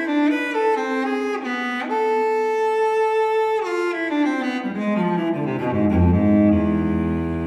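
Solo cello playing a slow, sustained melody: a long held note about two seconds in, then a line stepping down to a low note held near the end.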